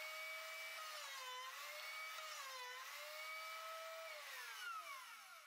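Electric router in a boring jig running at high speed with a steady whine that sags in pitch twice as the bit is fed into the wood to cut two dowel holes. About four seconds in it is switched off and winds down in a falling whine.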